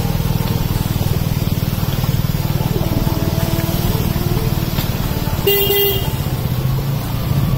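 Small motorcycle engine running steadily under the rider, with one short horn beep about five and a half seconds in.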